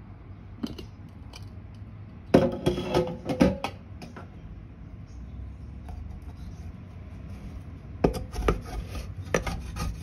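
A brief clatter of cookware being handled, then a wooden spatula scraping charred, soaked-soft burnt residue from the bottom of a steel pan in repeated strokes from about eight seconds in.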